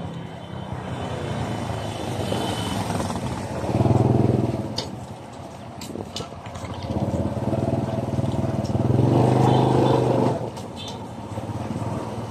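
Small motorcycle engines running. They swell louder about four seconds in and again for a longer stretch between about seven and ten seconds, with a few light clicks and rattles.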